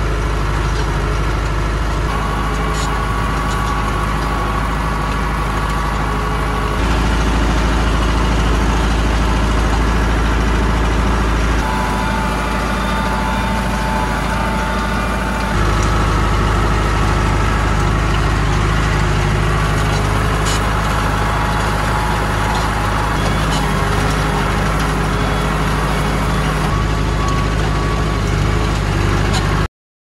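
Tractor engine running steadily under way, heard from inside the cab, its low tone and loudness shifting a few times. It cuts to silence just before the end.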